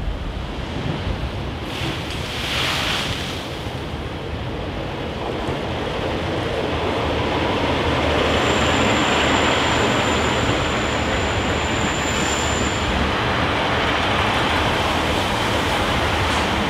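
Waves surging against the sea wall, with wind on the microphone. About halfway through, a GWR Class 143 Pacer diesel multiple unit runs in along the platform, its rumble growing and then holding steady, with a thin high steady squeal lasting a few seconds.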